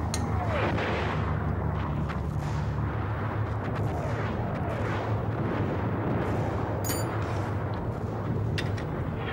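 Artillery bombardment: a steady low rumble with several sharp cracks of shell fire and a few falling whistles, some near the start and some midway.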